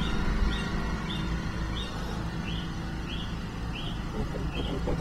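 A bird giving a short chirp over and over, about three times every two seconds, over a steady low hum.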